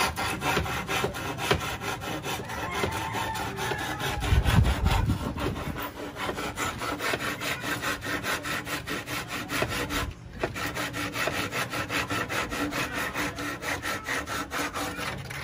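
Hand saw cutting through pallet wood with quick, even back-and-forth strokes. The strokes break off briefly about ten seconds in, and a low thump comes about four seconds in.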